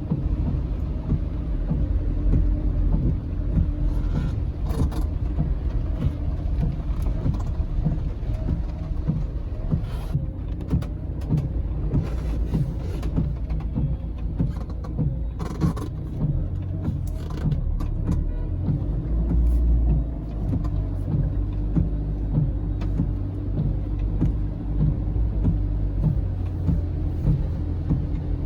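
Car driving, heard from inside the cabin: a steady low rumble of engine and road noise, with a few short knocks or clicks scattered through it.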